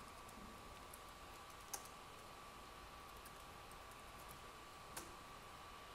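Faint computer keyboard typing: a few scattered keystroke clicks, the clearest about two seconds in and near the end, over a faint steady tone.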